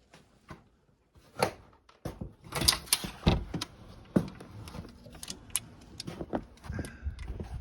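A door being opened: sharp knocks and clicks of the latch and handle, with a burst of clattering about two and a half seconds in. About two seconds in, a low rumble of wind on the microphone sets in and continues under scattered knocks.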